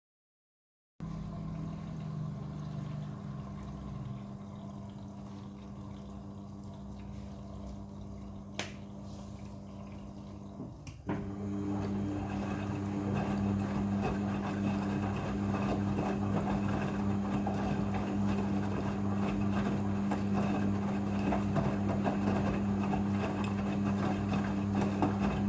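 Front-loading washing machine rinsing a load of bedsheets and a blanket: a steady hum with running water. About eleven seconds in, a click sets it going louder and fuller, and it drops off right at the end.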